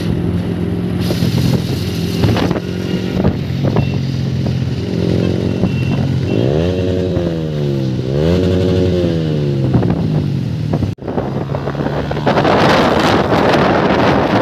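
Motorcycle engine running steadily, then revving up and falling back twice in quick succession. After a sudden drop-out, wind rushes loudly over the microphone.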